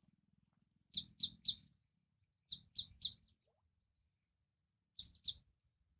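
A bird calling in short, high chirps, in three quick groups of two or three chirps each.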